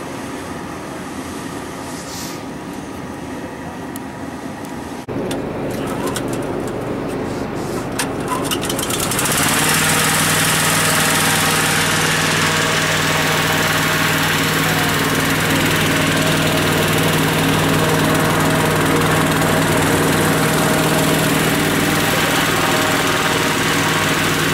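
Gasoline-engine inflator fan running, stepping up in speed about five seconds in and again to a loud, steady drone about nine seconds in. It is blowing cold air into a hot-air balloon envelope during cold inflation.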